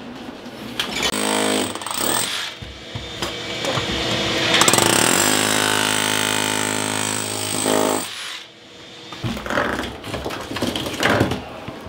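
Electric rotary hammer with a chisel bit chipping out an old tile shower floor on its mortar bed: short bursts about a second in, then a long steady run of hammering from about four to eight seconds. Near the end, broken tile and mortar rubble clatter as pieces are picked up.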